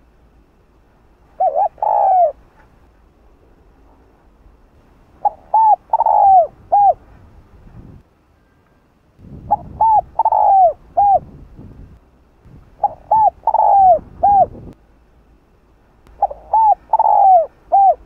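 Spotted dove (Streptopelia chinensis) singing its calling coo: five phrases a few seconds apart, each a couple of short notes, a longer drawn-out coo, then a short closing note.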